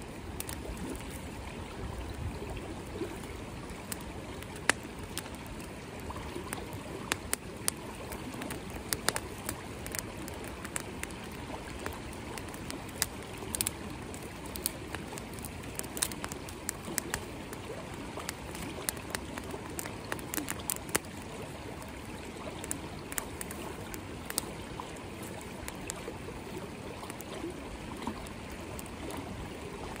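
A creek running steadily, under a small twig campfire crackling, with many sharp snaps and pops scattered irregularly through it.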